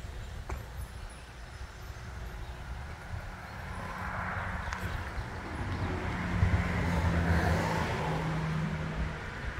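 A motor vehicle passing by: its noise swells from about four seconds in, is loudest around seven seconds with a steady engine hum, then fades toward the end.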